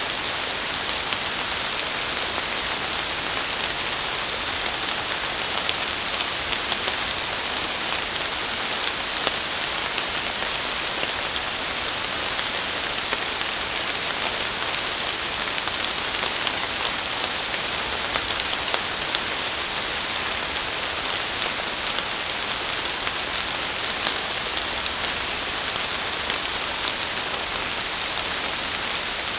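Steady rain falling on forest foliage: an even hiss dotted with many small drop ticks.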